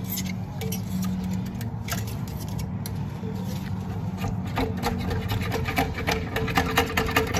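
Electric drain auger running to clear a blocked kitchen sink drain: a steady motor hum with the cable clicking and rattling, the clicks coming thicker in the second half.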